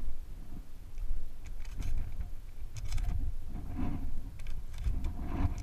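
Wind buffeting the microphone, with a few light clicks and rustles of gear being handled; no gunshots.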